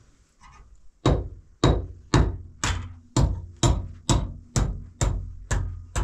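Hammer driving a nail into a wall with sharp, evenly spaced blows, about two a second, starting about a second in.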